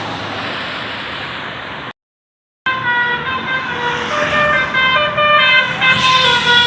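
A tour bus's multi-tone 'telolet' musical horn playing a tune of quick stepped notes, starting after a brief dropout to silence about two seconds in. Before the dropout, a fading rumble of a passing vehicle.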